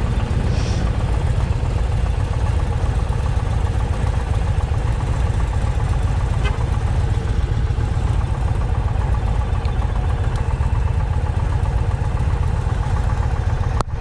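V-twin touring motorcycle engine idling steadily at standstill.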